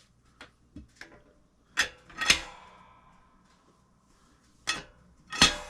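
Sharp metal clanks and knocks, about seven scattered ones, the loudest about two seconds in ringing briefly: the steel handles and parts of a new hydraulic log splitter being picked up and handled.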